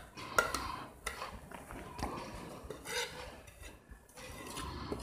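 Light clinks and scrapes of a ceramic plate against the rim of a glass bowl as ground spices are tipped and scraped off it, with a few sharp clicks spread through.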